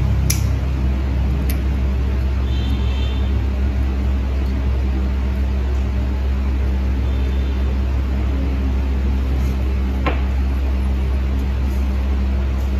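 A steady low electric motor hum, with a few sharp clicks from the metal nail tools.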